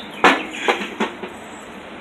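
Three sharp knocks, the first the loudest, as the old AC compressor is worked loose and lifted out of the engine bay.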